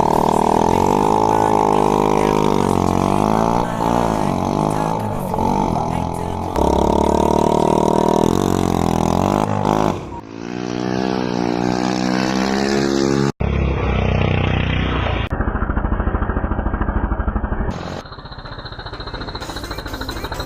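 Small 50cc kart engine running and revving up and down in pitch, in several short clips cut together, with a fast even pulsing in a later clip.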